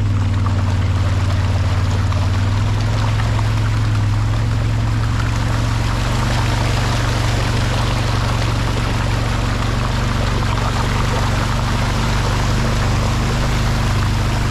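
Water rushing across a flooded road, a steady noisy hiss that swells in the middle, over the constant low hum of a running vehicle engine.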